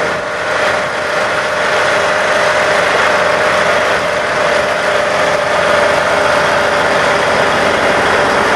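Diesel engine of a Morbark 1200 tub grinder and its mounted loader running at a steady idle, with a steady whine over the engine sound.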